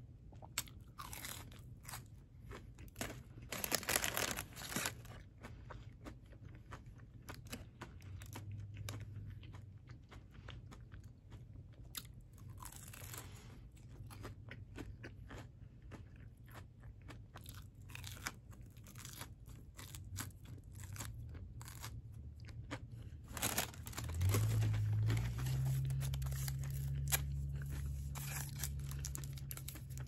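Close-up crunching and chewing of a breaded fried jalapeño bite, with dense bursts of crunching about four seconds in and again just past twenty seconds. For the last few seconds a low steady hum sits under the chewing.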